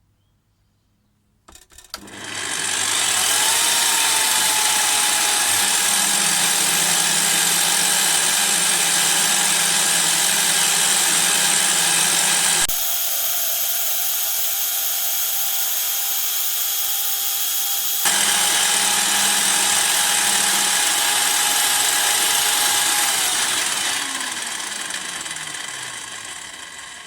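Lidl pillar drill used as a milling machine: the motor switches on with a click, runs up to full speed, and runs steadily flat out with a dense hiss while a 3 mm end mill takes a 0.2 mm facing cut. The low hum drops away for about five seconds midway. Near the end the motor is switched off and winds down, its pitch falling.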